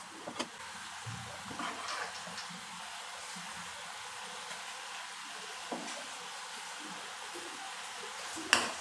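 Thick yogurt fish-curry gravy bubbling and sizzling steadily in a frying pan over a raised gas flame, as a metal spatula stirs and scrapes through it. It gives a few knocks against the pan, the loudest near the end.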